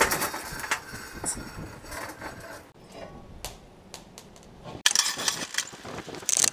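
Metal clanking and scraping as a steel bar and a steel baler roller are handled on a sheet-metal workbench. Sharp knocks come in the first second, a single strike comes midway, and a busy clatter fills the last two seconds.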